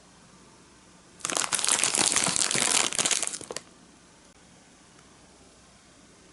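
Plastic snack-kit bag crinkling as it is handled and turned over in the hands, starting about a second in and lasting about two and a half seconds.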